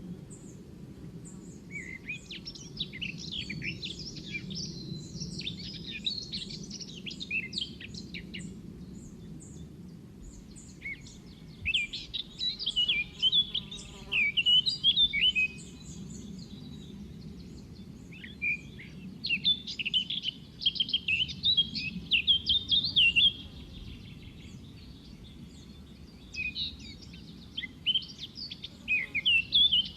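Kincrong bird singing in bouts of rapid, high chirping notes, four bursts of several seconds each with short pauses between, over a steady low background hum.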